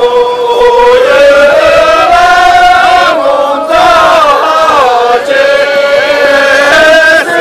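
A group of voices singing a Tibetan line-dance song in unison, with long held notes that slide from one pitch to the next.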